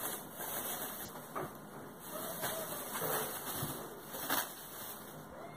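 Thin plastic bag crinkling and rustling as it is handled, opened and filled with cauliflower florets, with irregular crackles and a louder rustle about four seconds in.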